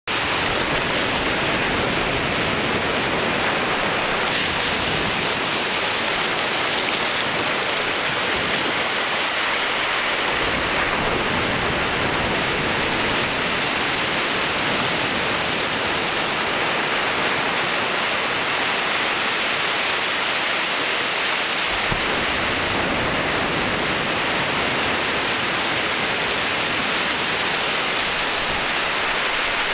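Ocean surf breaking and washing up a sandy beach: a steady, unbroken rush of noise.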